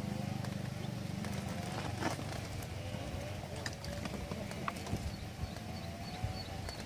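Scattered light clicks and knocks as fishing rods are handled in a metal rod rack, the sharpest about two seconds in, over a steady low hum. Faint high chirps repeat in the second half.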